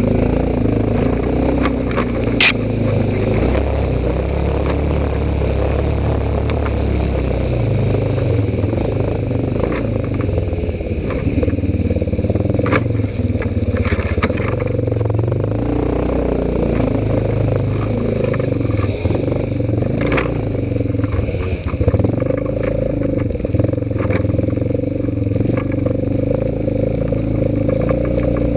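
ATV engine running steadily under way on a rough trail, with scraping and clattering as the machine pushes through brush, and scattered sharp knocks, the sharpest about two and a half seconds in.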